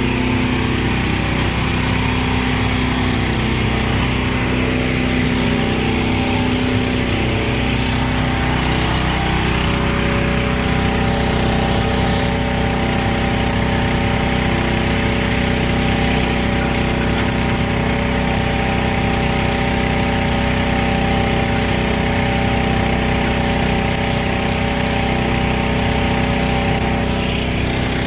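A small gasoline engine running steadily, its pitch wavering somewhat in the first ten seconds and then holding even.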